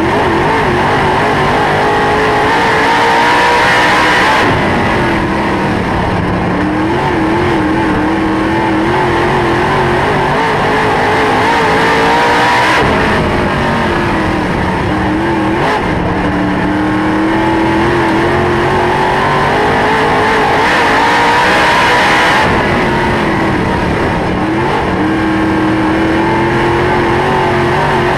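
Dirt late model's V8 engine running at racing speed, heard from inside the car. Its pitch climbs for several seconds on each straightaway and drops off as the driver lifts for the turns, three times over.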